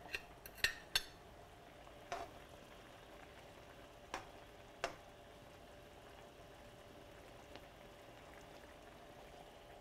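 Light clinks of a spoon against a pan, a quick cluster in the first second and then single ones about two, four and five seconds in, over the faint simmer of a thickened Marsala wine sauce.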